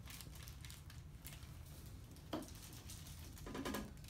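Soft rustle of hands moving over a patient's shirt on a chiropractic table, with a short soft knock a little past halfway and a brief louder rustle near the end.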